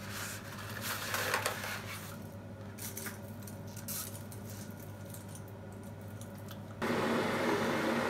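Small clinks and rustles of kitchen items and dry spaghetti being handled, over a steady low hum. About seven seconds in, it cuts abruptly to a louder, steady rushing noise.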